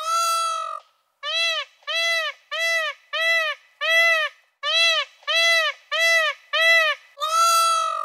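Indian peafowl (peacock) calling: one long call, then a run of about nine short calls, then another long call near the end.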